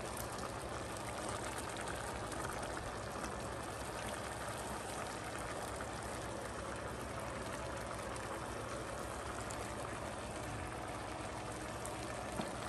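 Pot of mung bean soup on a gas burner, simmering with a steady bubbling hiss as it heats back toward the boil after cabbage and bitter gourd were added. There is one small click near the end.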